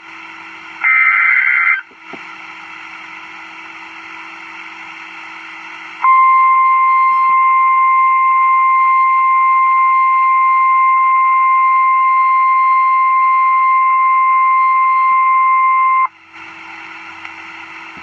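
NOAA Weather Radio Emergency Alert System broadcast announcing a tornado warning. A short, harsh SAME digital header burst plays about a second in, followed by a few seconds of radio hiss. Then the steady single-pitch 1050 Hz warning alarm tone sounds for about ten seconds and cuts off sharply, back to hiss.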